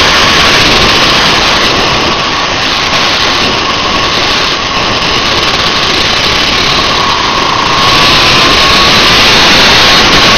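125 cc two-stroke kart engine running at racing speed, heard through heavy wind rush on a helmet-mounted microphone: a loud, rough noise with the engine note faintly rising and falling, getting louder again about eight seconds in.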